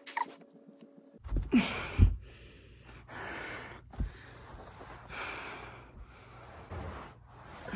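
A person breathing heavily and gasping after a long set of push-ups, a noisy breath about every one and a half to two seconds. Dull thumps about a second in, and again near the middle, as his body drops onto the carpet.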